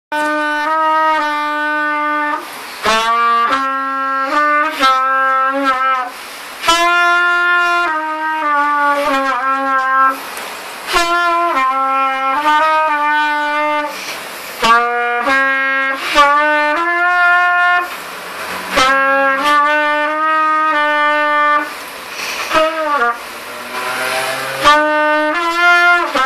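Trumpet played by a beginner only a few weeks into learning, a simple slow melody of held notes in a narrow range. The notes come in short phrases with brief breaks between them every few seconds.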